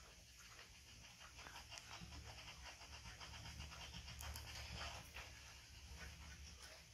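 Faint, rapid sucking and smacking of a baby macaque drinking milk from a bottle.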